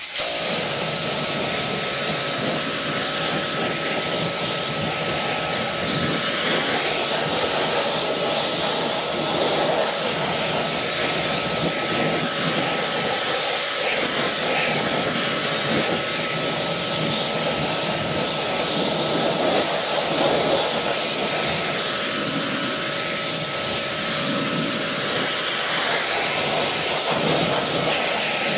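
Pressure washer spraying water onto an alloy wheel and tyre to rinse off wheel cleaner. The water makes a steady loud hiss, with a faint steady whine under it.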